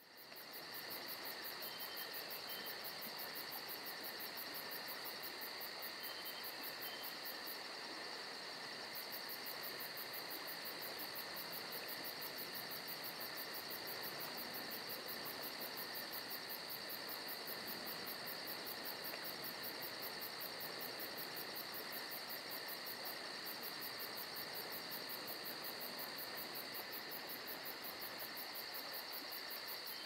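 Steady background chorus of insects chirring, a high, even, unbroken drone with a fast regular pulsing in its upper range.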